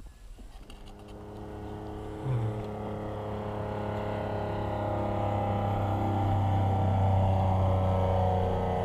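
A small propeller plane's engine droning steadily as it flies past, growing louder over several seconds and easing slightly near the end.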